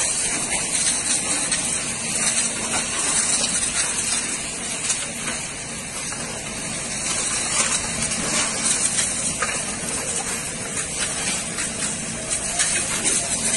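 Steady rushing hiss of fire-hose water jets spraying onto a burning building.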